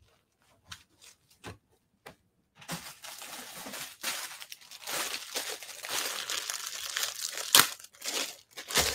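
Clear plastic poly bag crinkling as a packaged pair of leggings is handled. It starts with a few faint taps and clicks, turns into continuous crackling about two and a half seconds in, and has one sharp crack near the end.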